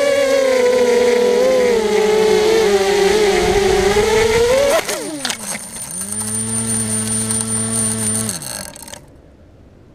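Brushless motors (2204 2300kv) of a ZMR250 FPV quadcopter whining loudly, the pitch wavering with throttle. About five seconds in the sound breaks off abruptly as the quad crashes. The motors then run at a steady lower hum for about two seconds, wind down and stop, leaving a faint hiss.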